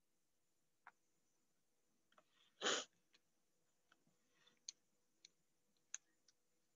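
Near silence on a video-call line, broken by one short puff of noise about two and a half seconds in and a few faint, brief clicks.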